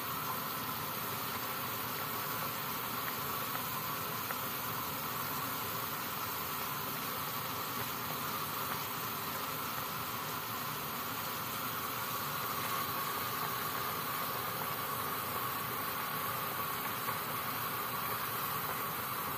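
Chicken broth with whole spices boiling hard in an aluminium pot on a gas stove: a steady bubbling hiss.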